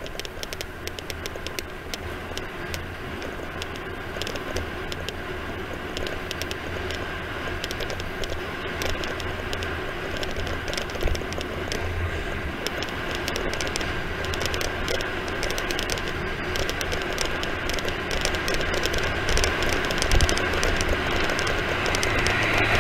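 Wind rushing over the microphone and tyre noise during a fast downhill ride, with a constant fine rattling of clicks, growing steadily louder as speed builds.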